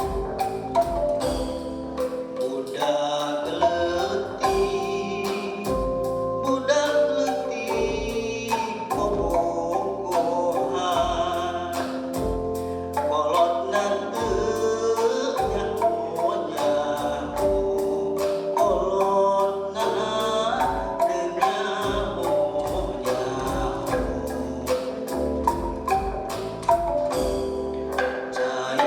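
Sundanese calung renteng, a row of tied bamboo bars struck with mallets, playing a dense stream of quick ringing notes, with voices singing over it.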